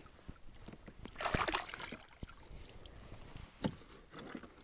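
Water splashing and sloshing beside a kayak, with one louder splash about a second in and a few light knocks against the kayak.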